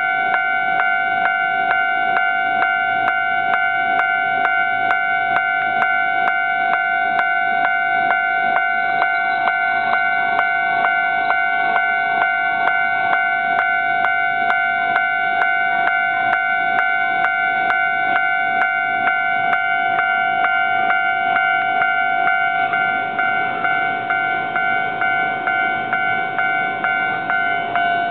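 Japanese railway level-crossing warning bell, starting suddenly and ringing on in a fast, even pulsing ding-ding with a steady two-note tone: the crossing signal warning that a train is approaching.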